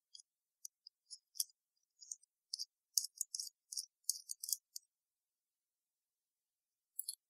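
Small metal clicks and light scrapes from the stainless-steel parts of a Kangertech Subtank Mini V2 RBA deck being twisted and handled by hand. They come in a quick cluster over the first five seconds, with one more click near the end.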